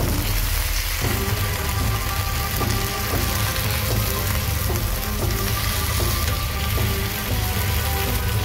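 Marinated chicken drumsticks sizzling on a hot ridged grill pan, under background music.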